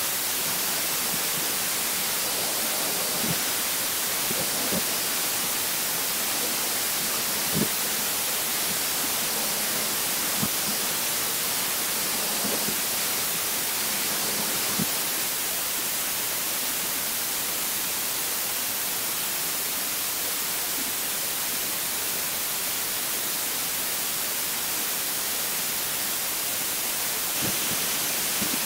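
High-pressure waterjet cutting machine's jet hissing steadily, an even high hiss, with a few light knocks.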